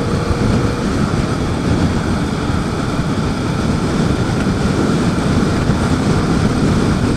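Yamaha FZ-07 parallel-twin motorcycle under way: a steady rush of wind on the microphone with the engine running underneath.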